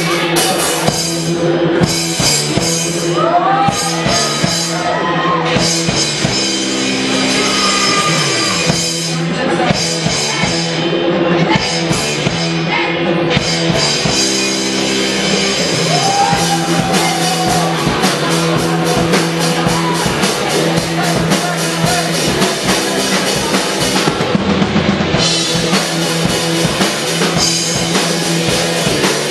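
Rock band playing at a sound check, with a drum kit keeping a steady beat under the other instruments.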